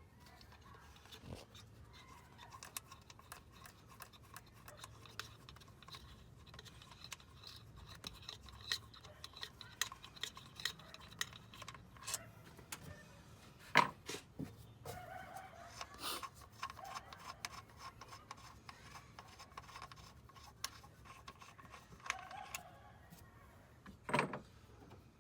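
Faint clicks and metallic clinks of hand tools and engine parts being handled, with a few sharper knocks. A dog barks in the distance now and then.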